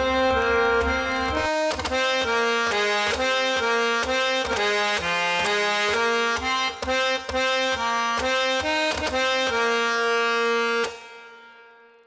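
Sampled harmonium from the Kontakt India Discovery Series playing a quick melody with its reedy drone underneath. It ends on a long held note about ten seconds in that fades away.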